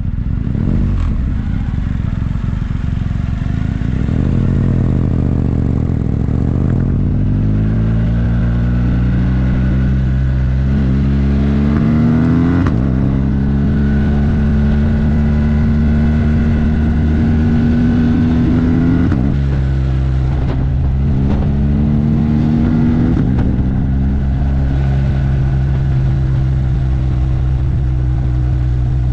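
Yamaha TDM900's parallel-twin engine pulling under load, its pitch climbing steadily, dropping at a gear change about twelve seconds in, then holding with two shorter dips and climbs later on.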